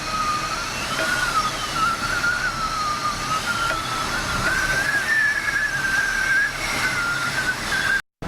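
Typhoon wind howling, a high whistle that wavers slowly in pitch over a steady rush of noise; it cuts off abruptly just before the end.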